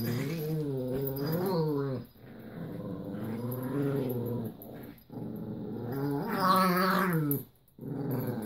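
Small dogs play-growling in a tug of war over a toy: long, steady growls broken by short pauses every two to three seconds.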